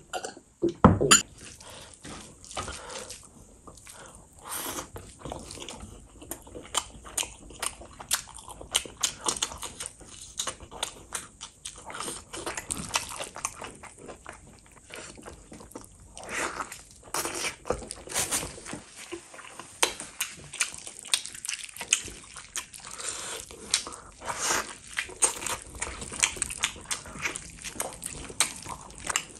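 Close-miked eating sounds: a drink from a glass about a second in, then a long run of irregular wet smacks, squelches and chewing as a gravy-soaked mutton leg is pulled apart by hand and bitten into.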